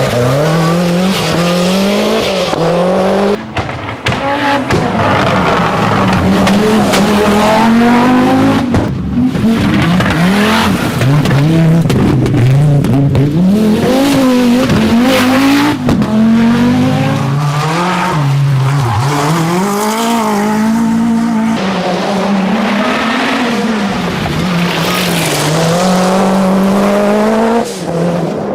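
Group B rally car engines driven hard, revs climbing and dropping over and over through gear changes and lifts. The sound jumps abruptly several times as one clip cuts to the next.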